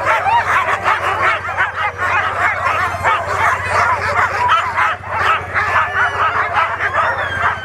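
Many harnessed sled dogs barking, yipping and whining all at once in a dense, continuous chorus: the excited clamour of dogs being hooked up and eager to run.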